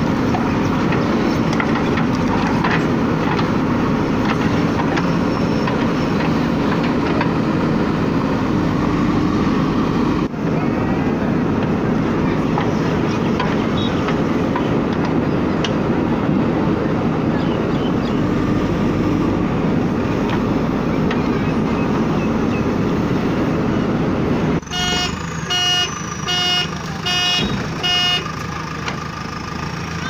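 JCB 3DX backhoe loader's diesel engine running steadily under load as the backhoe digs soil, with a brief break about ten seconds in. Near the end the engine noise falls off and a horn beeps about six times in quick succession.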